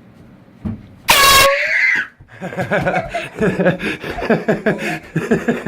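A handheld air horn gives one short, very loud blast about a second in, followed by laughter.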